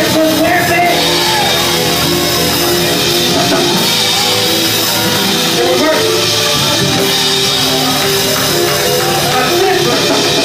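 Live church praise music with a band and drums, and a man's amplified voice singing into a handheld microphone over it.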